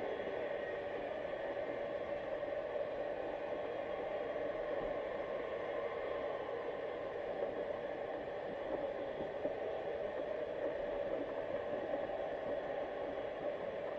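Steady, even underwater ambient noise heard through a GoPro's waterproof housing: a hiss with a faint hum and light scattered crackles.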